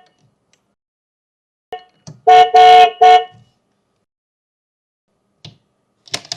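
Toy electronic car horn honking in a quick run of short beeps, about two seconds in, with light clicks of buttons being pressed before and after.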